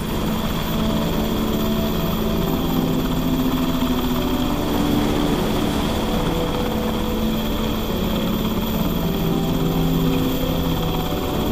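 Seahawk navy helicopter hovering low with a slung cargo net: steady rotor and engine noise with wind.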